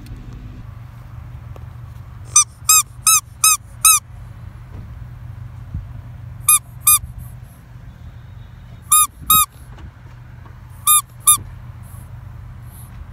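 Rubber squeeze toy squeaking in short, identical squeaks: five in quick succession, then three pairs a few seconds apart. A steady low hum of a car runs underneath.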